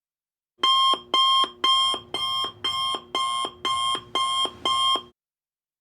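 Electronic alarm beeping: nine identical pitched beeps, about two a second, which then stop abruptly.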